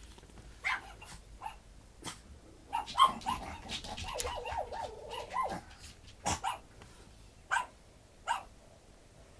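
Month-old Japanese Chin puppies yipping in short, high barks, with a wavering whine in the middle lasting about two seconds.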